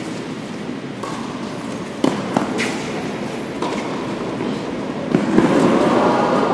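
Tennis balls being struck and bouncing, several sharp echoing pops in a large indoor tennis hall over a steady murmur of voices. The loudest pops come about two seconds in and again about five seconds in, and the chatter grows louder near the end.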